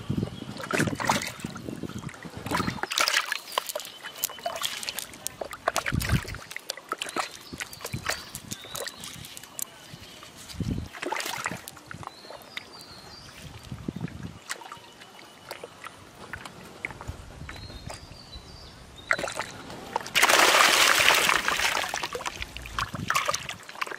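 Freshly caught fish being handled out of a wet cast net, with scattered wet slaps and rustles of net and fish on mud. About 20 seconds in, fish thrash in a basin of water, splashing loudly for about two seconds.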